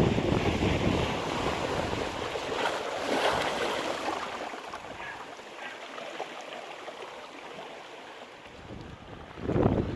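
Sea waves breaking on the shore at high tide: one wave crashes at the start and washes out in a long hiss, a smaller surge follows about three seconds in, and another wave breaks near the end.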